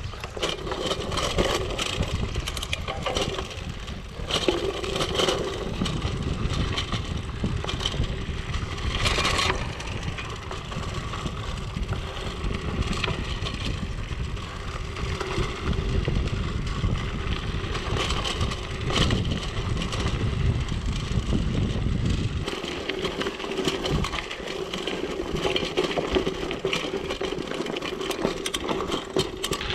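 Mountain bike tyres rolling over gravel, with a constant run of small crackles and rattles from stones and the bike. A heavy low rumble sits underneath and drops away about two-thirds of the way through.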